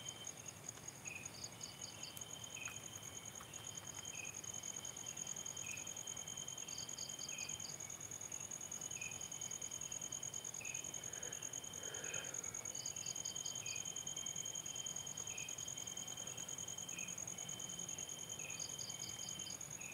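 Night chorus of crickets and other insects: a steady high ringing, a trill that starts and stops, short chirps about once a second, and a burst of rapid pulses about every six seconds.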